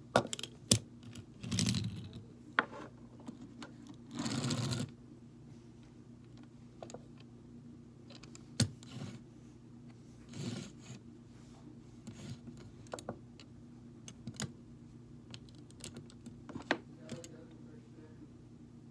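Small die-cast toy cars handled on a wooden tabletop: scattered clicks and taps, with two brief scraping noises about a second and a half and four seconds in, over a faint steady low hum.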